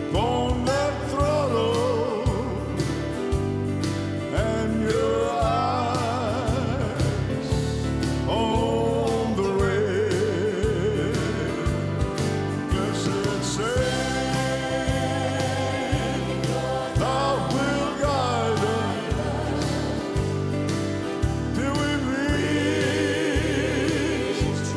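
Live gospel band music with piano, bass and a steady beat, and singing with vibrato over it.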